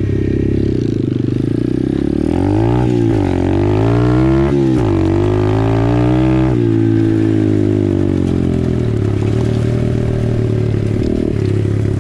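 Apollo RFZ 125cc pit bike's single-cylinder four-stroke engine pulling away and revving up through the gears. The pitch climbs and falls back with shifts about three and four and a half seconds in, climbs again, then settles into a steady run after about six and a half seconds.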